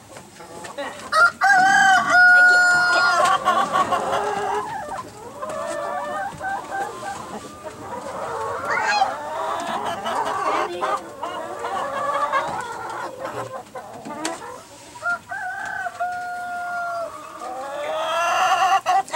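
Chickens clucking, with a rooster crowing twice, once about a second in and again about fifteen seconds in, each crow ending on a long held note.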